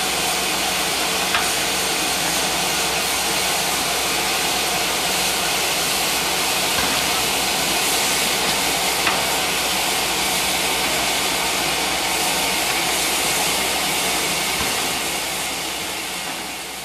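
Steam hissing steadily from a standing steam locomotive, most likely the Pacific 03 1010 at the head of its passenger train, with a faint steady hum underneath and a couple of small clicks. The hiss falls away near the end.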